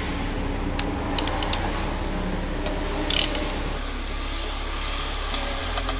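An 8 mm wrench loosening the bolts on a KTM Duke 390's clutch cover: scattered short metallic clicks.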